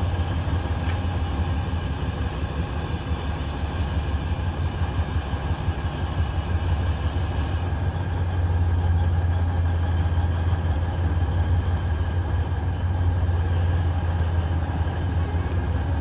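Alishan Forest Railway diesel locomotives running while standing at a station, a steady low engine hum that grows a little louder about halfway through.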